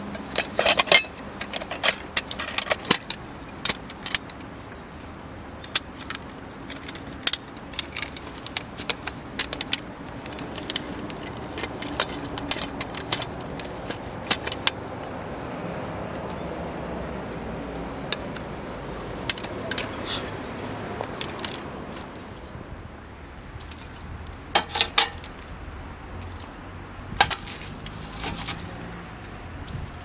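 Utensils clinking and scraping against metal camp cookware, in irregular clusters of sharp clicks.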